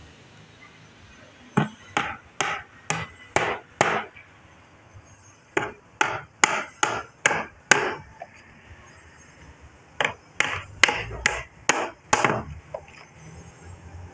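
Claw hammer driving nails into the wooden seat boards of a chair: three runs of about six blows each, roughly two a second, with short pauses between.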